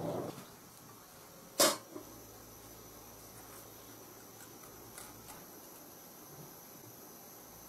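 Bitter melon being stuffed with minced meat by hand: one sharp clink of a utensil against a dish about a second and a half in, then faint handling sounds, over a steady faint high-pitched hum.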